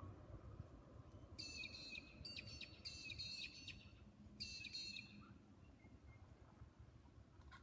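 Wild bird calls: a run of high, raspy chattering calls starting about a second and a half in, a short pause, then a couple more about four and a half seconds in, over a faint low outdoor rumble.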